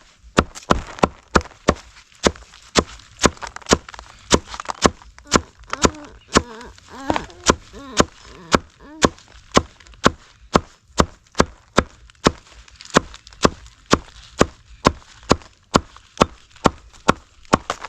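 Knife chopping kale and cassava leaves in steady, even strokes, about two to three a second.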